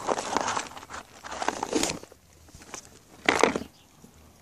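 A dog eating from a plastic bowl: crunching and crackling in the first two seconds, then quieter with a few short bursts.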